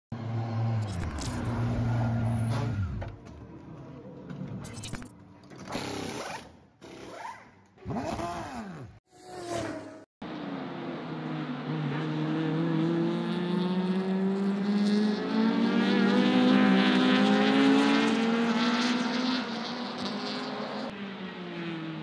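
For the first ten seconds, short cut-together bursts of race-car engines revving and passing, with abrupt cuts and silences between them. Then one touring race car's engine runs at high revs without a break, climbing in pitch and growing louder as it accelerates, loudest about two-thirds of the way through and easing off near the end.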